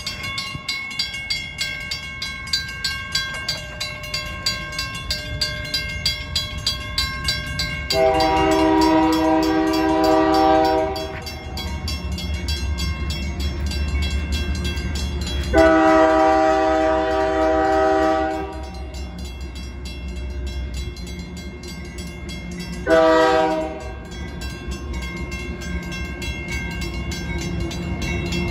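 Grade-crossing warning bells ring in a steady rhythm while an approaching Union Pacific diesel locomotive sounds its multi-note air horn: two long blasts and then a short one, the standard grade-crossing warning. The low rumble of the locomotive grows louder in the second half.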